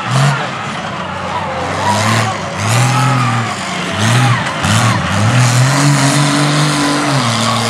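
Big-tyred mud truck's engine revving in repeated surges, the pitch climbing and dropping several times, then held high for about two seconds near the end as the truck pushes through the mud pit.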